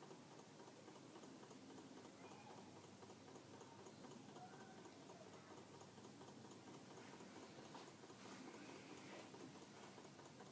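Small coffee-cup Stirling engine running, a faint rhythmic ticking from its moving parts over a low hiss.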